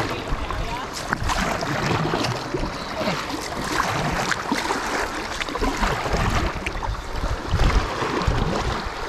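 Water splashing and lapping around an inflatable kayak as it is paddled along a river, with paddle strokes dipping in and wind rumbling on the microphone at times.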